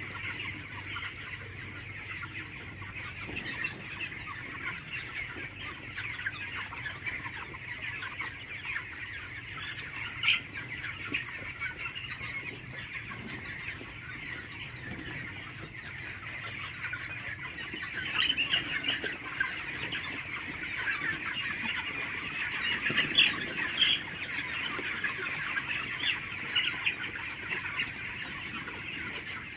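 A flock of desi chickens clucking continuously in many overlapping calls, with a few louder calls now and then.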